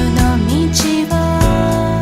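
Upbeat background music with a steady beat, a strong bass line and melody notes that slide between pitches.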